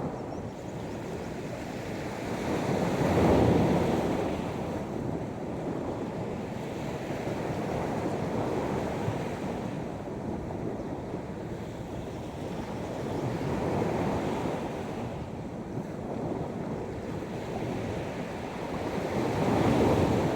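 Sea waves washing onto the shore, a steady rush that swells into a louder break every several seconds, with the biggest surges about three seconds in and near the end.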